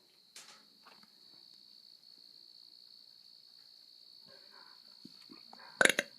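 A steady, high insect trill, crickets, with faint scattered rustling. A short, sharp thump comes near the end.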